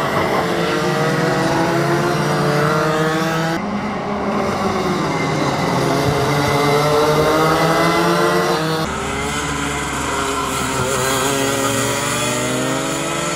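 Racing kart two-stroke engines revving up and down as karts drive through corners, the engine pitch rising and falling repeatedly. The sound changes abruptly twice, at the cuts between shots.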